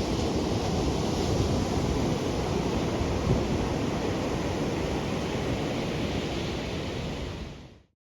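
Ocean surf washing steadily, with wind rumbling on the microphone; it fades out near the end.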